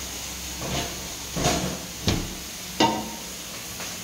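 Gas stove burner hissing steadily on a high flame under a large pot of liquid heating toward the boil. Four or five light knocks or clinks sound over it, the sharpest nearly three seconds in.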